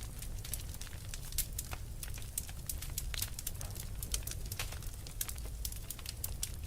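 Wood fire crackling: many irregular sharp pops and snaps of varying loudness over a steady low rumble.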